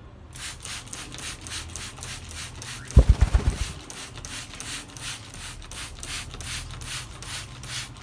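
Hand-pumped spray bottle squirting water in quick hissing bursts, about three or four a second, as an African grey parrot is misted for a bath. About three seconds in, a short, loud burst of low fluttering as the wet parrot flaps and shakes its wings.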